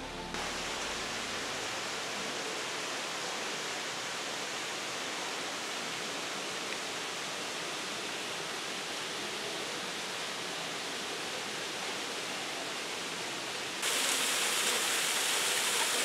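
Fast-flowing mountain water rushing steadily. About fourteen seconds in, the rush suddenly becomes louder and brighter.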